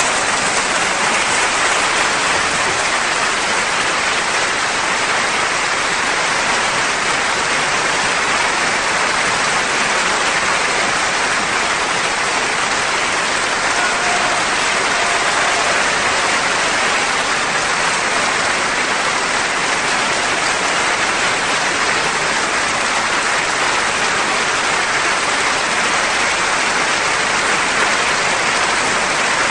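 Large theatre audience applauding, steady and sustained, with no music under it.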